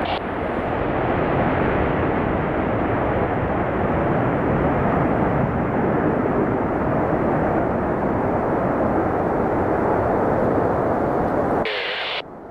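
Jet engines of four Blue Angels F/A-18 Hornets at takeoff power during a formation takeoff roll: a steady, loud roar that cuts off suddenly near the end.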